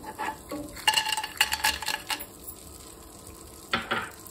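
Cashew nuts tipped into sizzling melted butter in a pan, clattering in as a quick cluster of clicks over about a second. A wooden spatula gives a short stir near the end.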